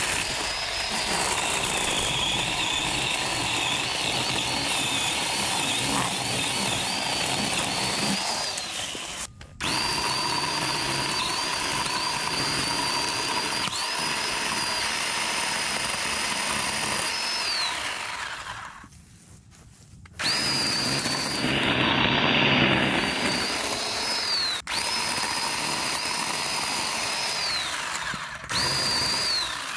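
Ryobi One+ 18-volt cordless chainsaw with a 10-inch bar running in long bursts, its electric motor giving a steady high whine that sags a little as the chain bites into crab apple wood. The whine winds down in pitch each time the trigger is let go, several times over, with a louder stretch of cutting noise about two-thirds through.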